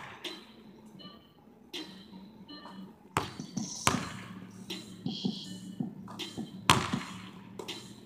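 A basketball bouncing on a hardwood gym floor: a handful of sharp, unevenly spaced bounces, the loudest about three, four and seven seconds in, as the ball is dribbled at the free-throw line.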